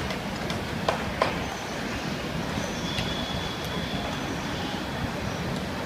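Steady low rumble of distant traffic, with two sharp knocks about a second in and a faint thin high tone in the middle.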